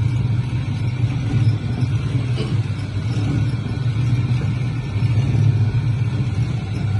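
Soap-mixing machine's motor running with a steady low drone, churning a batch of dishwash-bar soap. A faint knock sounds about two and a half seconds in.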